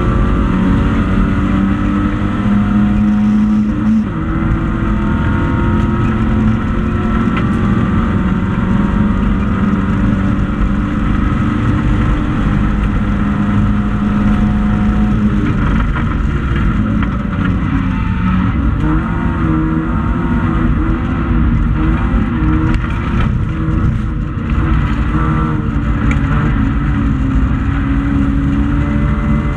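Racing hatchback's engine heard from inside the cabin, running hard with its pitch climbing under acceleration. There is a brief drop about four seconds in and again near twenty-four seconds at gear changes, and the revs waver up and down in the middle.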